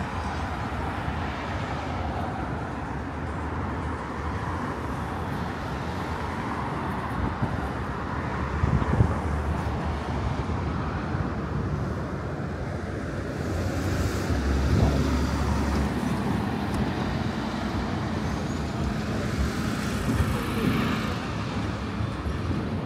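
City street traffic: a steady wash of passing cars and engines, swelling as louder vehicles go by about nine seconds in and again around fifteen seconds in.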